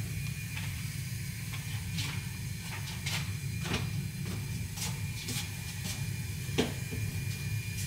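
Scattered light knocks and clicks of things being handled and moved about, over a steady low hum.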